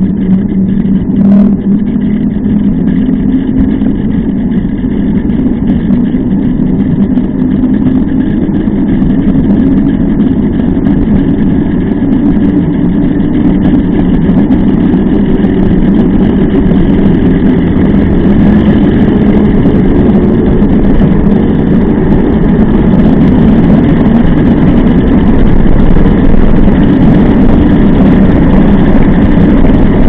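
Knobby mountain bike tyre rolling on asphalt at speed: a steady, loud hum and rumble that grows slowly louder over the stretch.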